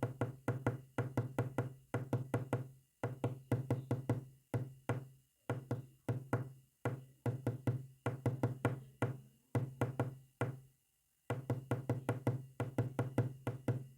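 Rapid, evenly spaced knocks, about seven a second, tapped out in short groups with brief pauses between them, each group ringing with a low hollow resonance.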